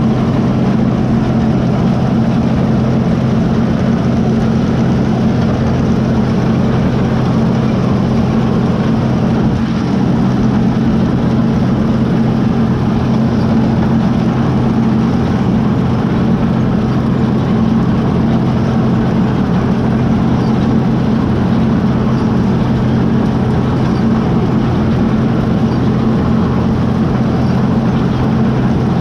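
Axial-flow combine harvester running steadily, its engine and threshing drive giving a constant low hum.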